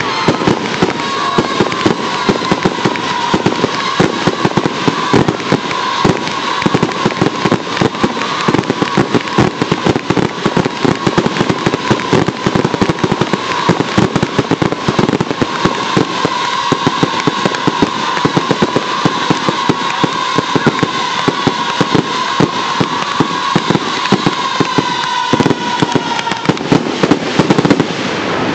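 Professional display fireworks shells firing and bursting in a rapid, continuous barrage, with a steady wavering whistle running underneath; the dense volley cuts off near the end, as a finale does.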